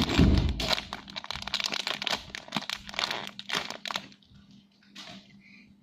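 Plastic crinkling and crackling from a squishy toy being handled in its plastic wrapper. It opens with a soft low thump, runs thick for about four seconds, then thins to a few faint crackles.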